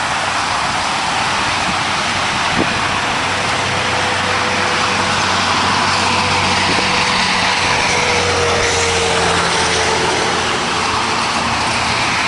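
Steady hiss of highway traffic, with a heavy vehicle passing in the middle: a low engine drone and a slowly falling whine for several seconds.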